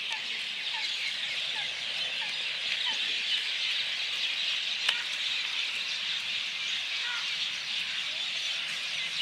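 Dense chorus of many birds calling at once, a steady chattering hiss of small chirps. A lower short call repeats every half second or so during the first few seconds, and a single click comes about five seconds in.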